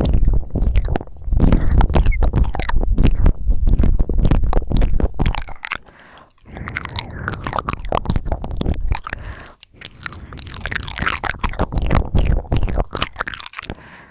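Close-miked wet mouth sounds: rapid clicking, smacking and slurping right at the microphone, with a deep rumble through the first half and two brief pauses, about six and nine and a half seconds in.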